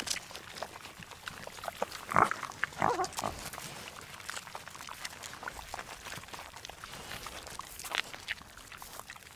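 Macaque giving two short calls about two and three seconds in, over small clicks and rustles.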